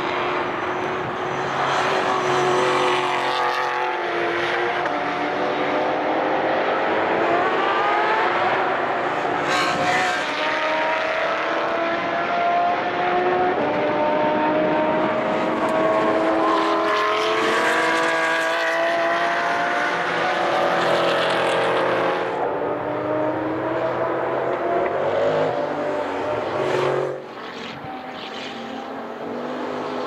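Racing cars passing through a bend one after another, their engines revving with pitch rising and falling as they work up and down the gears. The sound drops off suddenly near the end.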